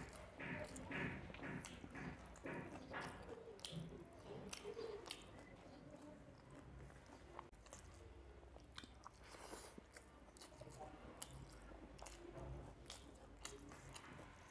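Close-miked chewing of rice and fish curry, with the soft squish of fingers mixing rice and gravy on a steel plate and many small scattered clicks.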